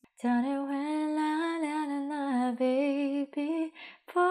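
A woman singing a slow wordless melody in long, held notes that glide gently up and down, pausing briefly a couple of times, breaking off about four seconds in and starting again right at the end.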